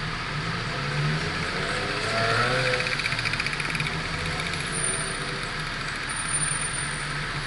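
Car driving on a freeway: steady tyre and engine noise, swelling for a moment about two to three seconds in with a short whine that bends in pitch.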